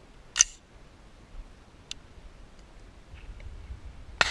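Two sharp gunshot reports, one about half a second in and one at the very end with a short echoing tail, with a faint click between them.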